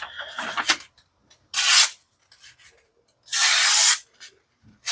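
D2-steel folding knife blade slicing through paper to test its edge after cutting rope: a short hissing slice about one and a half seconds in, a longer one past the middle, and another starting near the end.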